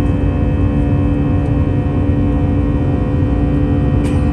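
Airbus A321's CFM56 jet engines heard inside the cabin during the climb: a steady drone with a strong constant hum and several fainter tones over a low rumble. A brief click about four seconds in.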